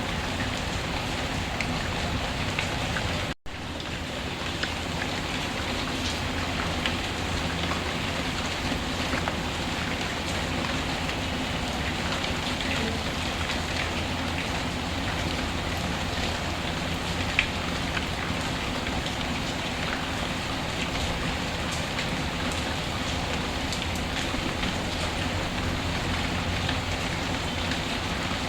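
Steady rainfall mixed with the scattered sharp crackles of a wood fire. There is a momentary dropout about three seconds in.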